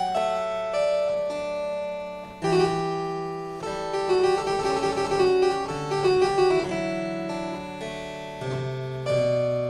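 Background music on a keyboard instrument: struck, ringing chords with a quicker run of notes in the middle.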